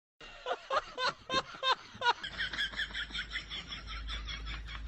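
Bird-like chirping: a few sharp chirps, then a quick, even run of short high chirps, about six a second.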